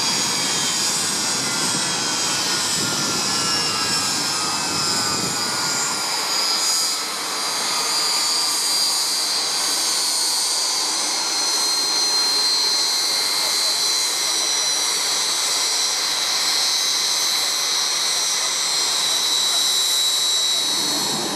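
BAE Hawk jet trainer's Adour turbofan running on the ground, a steady high-pitched turbine whine. A lower whine glides down in pitch over the first few seconds.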